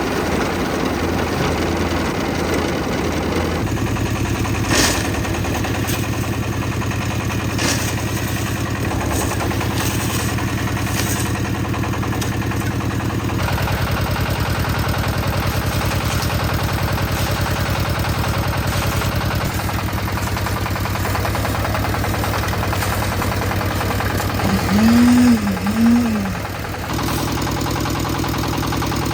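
Concrete mixer's engine running steadily, its pitch shifting a few times, with a few sharp knocks in the first half. A little before the end come two short rising-and-falling tones.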